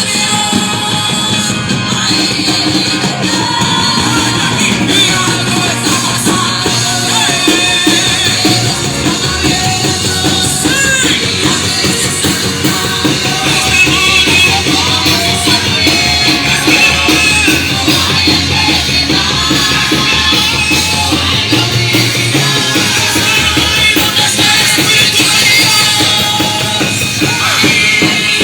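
A live worship band playing loud, rock-style music, with a drum kit keeping a steady beat and voices singing and calling out over it.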